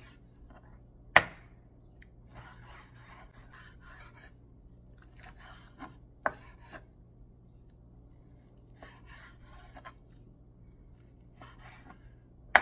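Chef's knife slicing raw chicken breast into strips on a wooden cutting board: groups of soft rasping strokes as the blade draws through the meat. A sharp knock about a second in is the loudest sound, with a smaller one about six seconds in.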